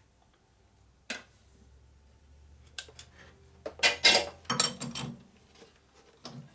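Metal hand tools clinking and clattering as they are handled at a metal lathe: a few single clicks, then a burst of metallic rattling about four seconds in, and one more click near the end.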